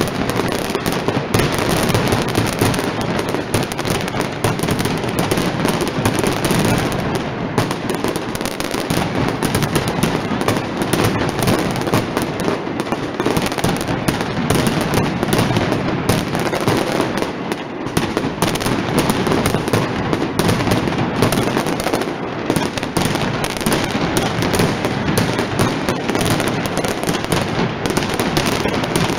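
Mascletà firecrackers and aerial salutes going off in a dense, continuous barrage of loud bangs in rapid succession, with no letup.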